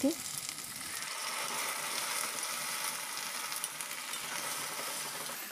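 Diced onions, green chillies and capsicum sizzling in hot oil in a pan as a sauce mixture is poured over them; a steady, even sizzle.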